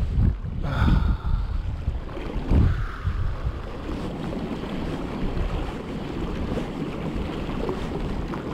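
Gale-force wind in a squall buffeting the camera microphone, a low rumble. It gusts hardest in the first few seconds, then settles into steadier buffeting.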